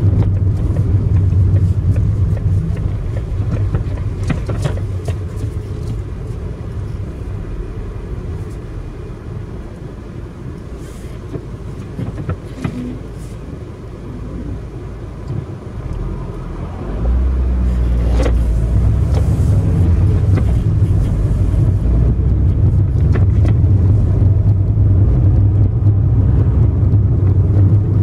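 Road and engine noise inside a moving car: a steady low rumble of tyres and engine. It eases off through the middle, then gets louder suddenly about two-thirds of the way through and stays there.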